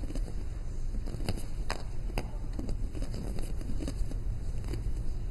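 Small balls being handled and played with, giving scattered sharp clicks and knocks at irregular intervals over a steady low rumble.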